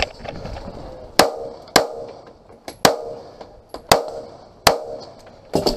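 A semi-automatic pistol firing about seven shots, spaced half a second to a second apart, each a sharp crack with a short ring-off. The last two shots come in quick succession near the end.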